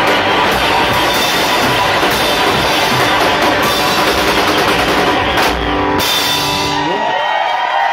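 Live rock band playing loudly: distorted electric guitars over a pounding drum kit. Near the end the low end drops out, leaving a few sliding, ringing notes.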